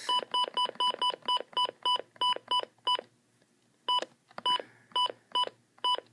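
Midland WR-301 weather radio's keypad beeps: a fast, even run of short identical beeps, about four or five a second, for three seconds. After a brief pause, single beeps follow about half a second apart as the buttons step through the date setting.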